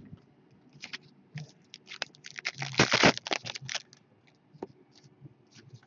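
Glossy trading cards being handled and slid over one another in the hands: scattered light scrapes and clicks, with a denser run of quick scraping strokes about three seconds in.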